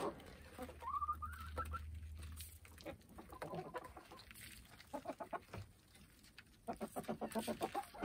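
Backyard hens clucking softly, with one drawn-out rising call about a second in and a quick run of short clucks near the end.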